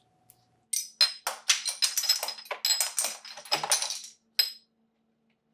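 A quick, irregular run of clinks and rattles with a bright ringing tone, lasting about four seconds.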